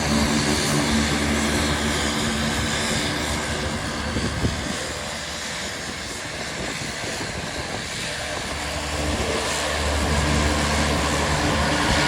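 Honeywell TPE331 turboprop engines of a Fairchild Metroliner running with a steady drone of several held tones. About a third of the way in it drops slightly and turns rougher for a few seconds, with a brief click, then steadies again near the end.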